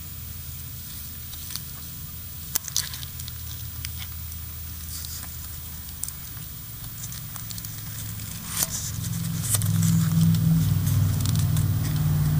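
Crackling and rustling in dry grass, with scattered sharp clicks, from a goldendoodle puppy playing in it. A low rumble grows louder from about nine seconds in.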